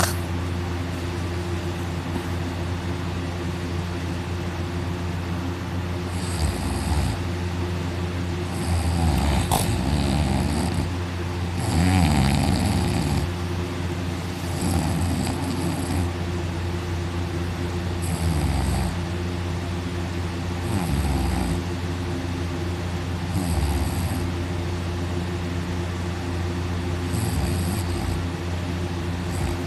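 A man snoring loudly in his sleep, lying on his back with his mouth wide open. There are about nine snores, one every two to four seconds, starting about six seconds in, over a steady background hum.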